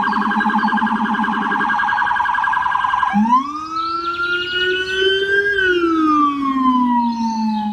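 Police siren: a fast pulsing warble for about three seconds, then a single slow wail that rises and then falls.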